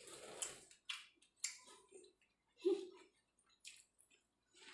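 Faint sounds of people eating by hand: scattered short mouth clicks and chewing, with a brief low murmur a little over halfway through.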